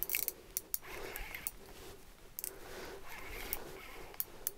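Small ice-fishing reel being cranked, its gears turning quietly with scattered light clicks, as a hooked fish is reeled up.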